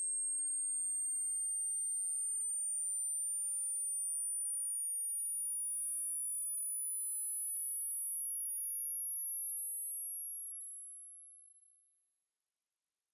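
A single pure, very high-pitched test tone from a hearing test, climbing in small steps about every second and a bit. It is a frequency sweep that rises until the listener can no longer hear it.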